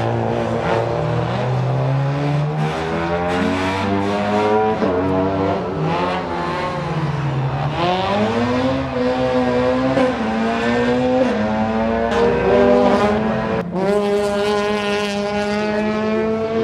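BMW 318 Compact rally car's engine at high revs, its pitch falling and rising again as the car slides with wheelspin and tyre squeal. After a sudden break about 14 s in, a Peugeot 106 rally car's engine holds a steady high note.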